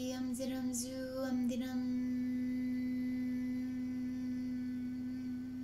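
A woman's voice in wordless light-language vocalizing: a few wavering, sung syllables, then one steady note held with the lips closed as a hum for about four seconds.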